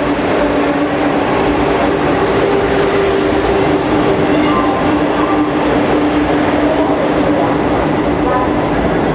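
Vande Bharat Express electric multiple-unit train running along the platform as it pulls into the station. A loud, steady rumble carries a steady whine, with a few brief high squeaks.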